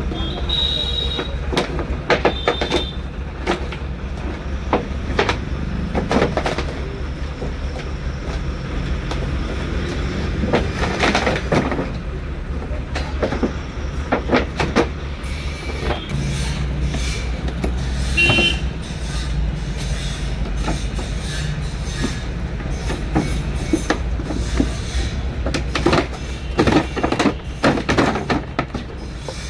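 Steady low rumble of a vehicle on the move, with frequent knocks and rattles and a few brief squeaks.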